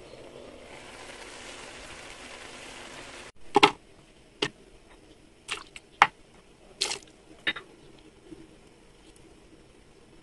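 A covered pan hissing steadily as it cooks on the stove for about three seconds, then, after a cut, a series of short knocks and splashes as chilies, garlic and liquid seasonings such as fish sauce and lime juice are added to a glass blender jar for a seafood dipping sauce.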